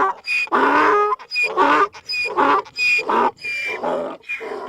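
Donkey braying: a long run of quick hee-haws, a high wheezy 'hee' alternating with a lower 'haw' about every three quarters of a second.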